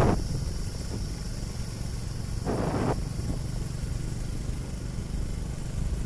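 Motorcycle riding along a road: a steady low engine and road rumble, with one brief rush of noise about two and a half seconds in.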